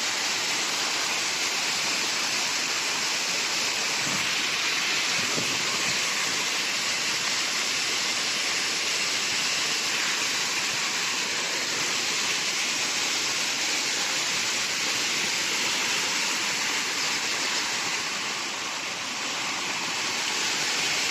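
Waterfall pouring steadily, a constant even rush of falling water that eases slightly near the end.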